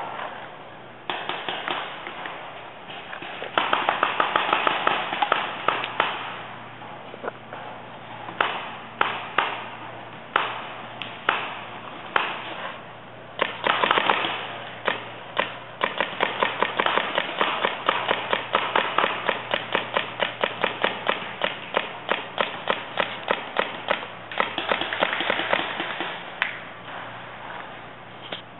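Paintball markers firing: sharp pops, single shots and fast strings of several a second, sometimes overlapping into rapid volleys.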